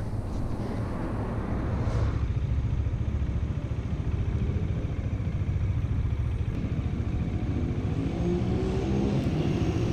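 Motorcycle engine and road noise heard from the rider's own bike while riding, a dense low rumble throughout, with the engine pitch rising and falling near the end.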